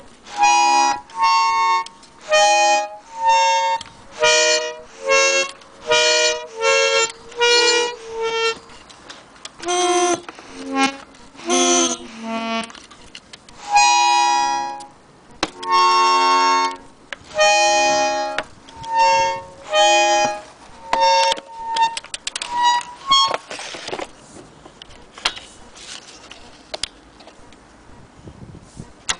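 Small vintage Imperial button accordion sounded note by note: short single reed notes and chords, each held about half a second, one or two a second. After about twenty-two seconds the notes thin out and stop, leaving faint handling noise.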